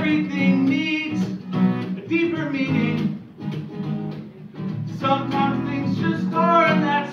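A man singing and strumming an acoustic guitar. His voice drops out for about two seconds midway, leaving the guitar alone, then comes back.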